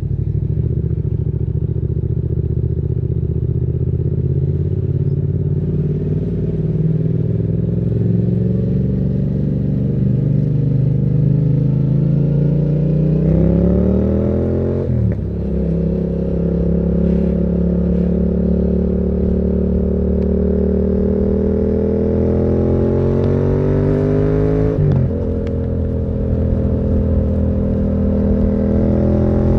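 Yamaha MT-07's parallel-twin engine through a Termignoni exhaust, pulling under acceleration: the note climbs steadily, drops sharply on an upshift about halfway through, climbs again and drops on a second upshift near the end.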